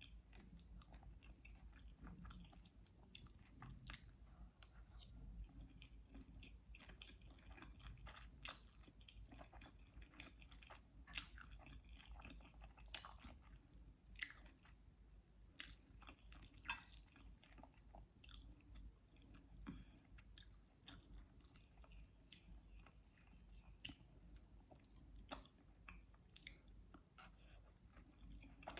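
A person chewing and eating food close to the microphone, with soft irregular mouth clicks.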